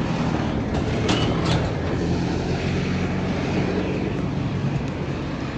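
Steady low engine drone, with two faint clicks about a second in.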